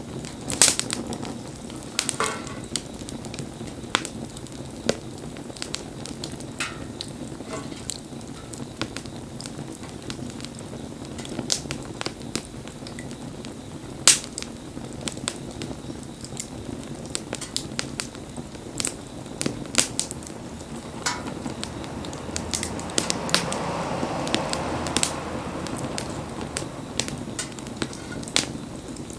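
Wood fire burning: irregular sharp cracks and pops from the burning wood over a steady low rumble of flame, with a stretch of louder hissing about three-quarters of the way through.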